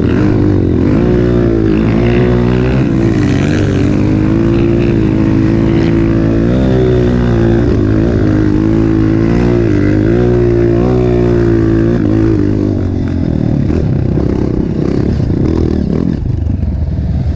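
Trail motorcycle engine running under way, its pitch rising and falling as the throttle is worked. About thirteen seconds in the note turns rougher and less steady.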